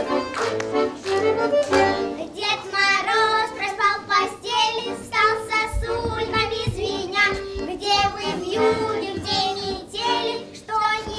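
A young girl singing a chastushka, a Russian folk ditty, over instrumental accompaniment; her voice comes in about two seconds in.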